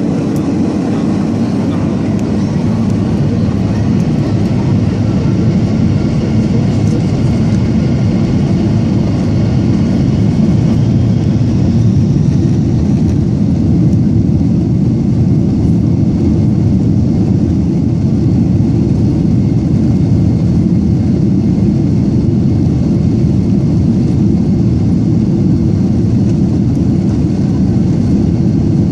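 Jet airliner's engines and airflow, a steady low rumble, heard from inside the passenger cabin during the takeoff phase of the flight.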